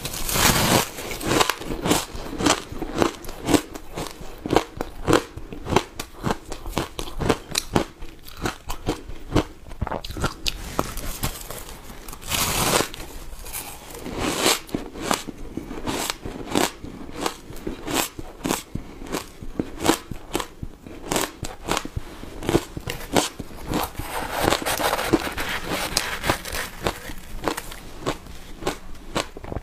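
Shaved ice topped with matcha powder being bitten and chewed close to the microphone: a dense run of crisp, icy crunches, louder in a few stretches.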